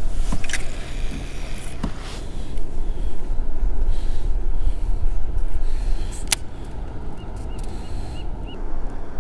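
Wind rumbling on the camera microphone over open water, with a few sharp clicks, the loudest about six seconds in.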